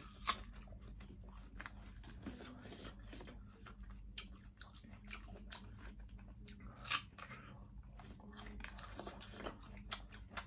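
Crisp apple being bitten and chewed close to the microphone: a run of short crunches, with the sharpest about a third of a second in and another about seven seconds in.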